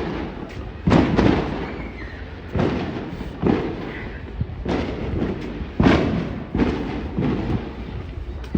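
A series of heavy bangs or thumps, about one a second, each starting sharply and dying away quickly.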